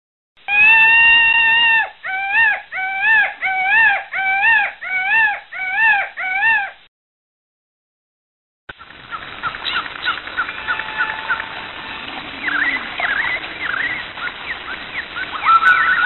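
Jungle sound effect: a long, pitched animal call, then a run of about eight shorter rising-and-falling hoots, about two a second. After a pause of about two seconds comes a dense jungle ambience with many birds chirping and whistling.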